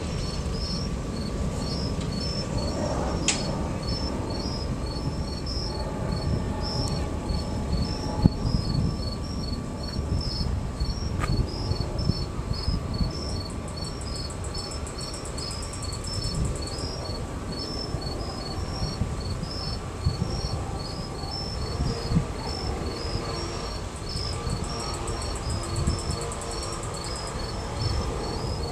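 Crickets chirping in an even rhythm of several chirps a second, in two pitches, over a steady low rumble. A higher buzzing insect trill comes in twice.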